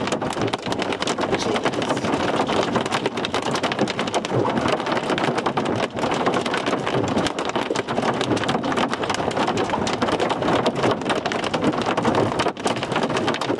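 Hailstones pelting the roof and windshield of a vehicle, heard from inside the cab as a dense, steady clatter of countless small impacts.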